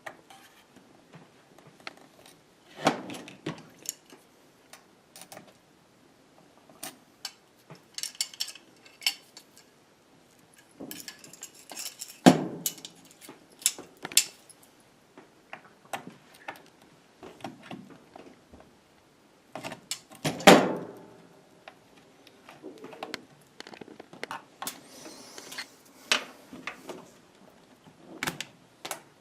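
Hands and a screwdriver working on the underside of a laptop case: scattered clicks, taps and small clatter of tool, screws and plastic. Three louder knocks stand out, about three, twelve and twenty seconds in.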